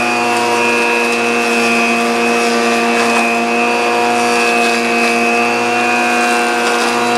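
Benchtop jointer running with a steady motor whine while a board is fed edge-down across its cutterhead, the knives shaving the wood. The whine drops slightly in pitch under the cut and picks back up near the end.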